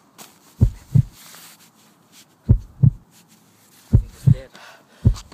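Heartbeat sound effect: deep, low double thumps (lub-dub), four beats that come faster each time.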